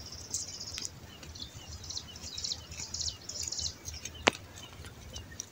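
Small birds twittering with many short, high-pitched chirps, and a single sharp click about four seconds in.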